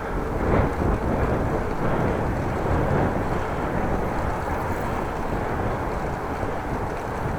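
Wind blowing on an action camera's microphone while cycling: a steady, low noise that swells briefly about half a second in.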